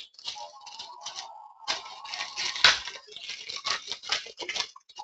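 Trading card box packaging being opened and handled: crinkling and tearing, with quick clicks and rustles in irregular bursts. A longer scraping tear runs through the first half.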